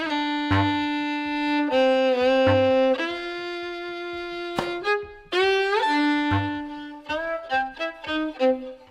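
Violin played with the bow: held notes, often two strings at once, with a quick upward slide a little past halfway and shorter notes near the end. A few short low thuds sound underneath.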